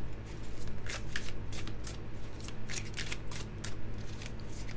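Cosmic Tarot deck being shuffled by hand, hand to hand: an irregular run of quick card slaps and clicks, several a second.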